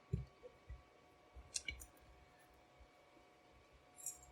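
Faint, scattered clicks and taps from handling a just-picked Schlage Everest lock core and its lock picks, a handful in the first two seconds.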